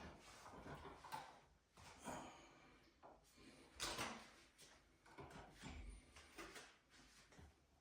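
Faint, scattered clicks, taps and scrapes at irregular moments: hand work on electrical wall devices, such as cover plates, switches and receptacles being unscrewed and handled.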